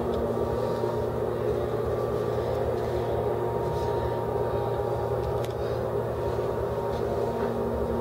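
Schindler 330A hydraulic elevator's pump motor running as the car travels: a steady low hum with a fainter higher tone over an even rush of noise.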